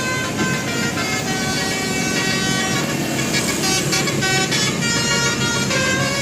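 Bus 'telolet basuri' musical horn playing a fast tune of several tones at once, its notes changing every fraction of a second, over a steady low hum.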